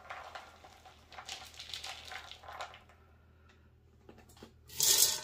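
Rinsed dry beans being scooped with a measuring cup and tipped out, a rustling, rattling sound, with a louder burst near the end.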